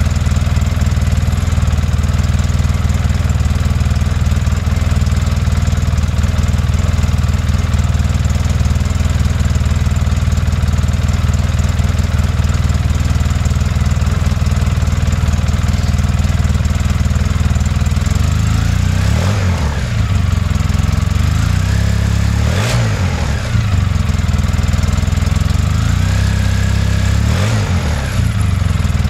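Polaris Sportsman 800 ATV's twin-cylinder engine idling steadily through a stock muffler lengthened four inches and fitted with a Benz ATV Silencer, giving a low, muffled exhaust note. In the last third, the throttle is blipped three times in short revs that rise and fall back to idle.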